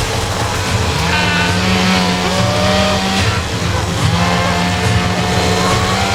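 An engine running loudly and steadily, with a whine that wavers up and down in pitch over it.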